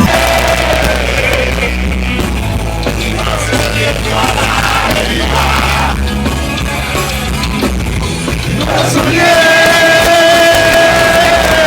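Rock music with singing, with a long held note from about nine seconds in.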